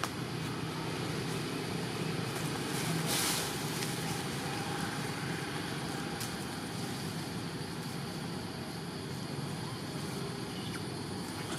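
Steady low background drone of distant engine noise, with a brief rustle about three seconds in.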